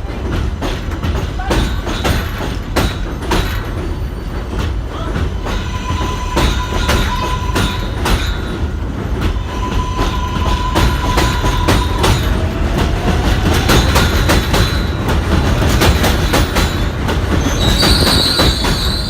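R143 subway train pulling into the station, its wheels clattering over rail joints above a steady rumble that slowly grows louder. Twice in the middle a held tone sounds, and a high wheel squeal starts near the end.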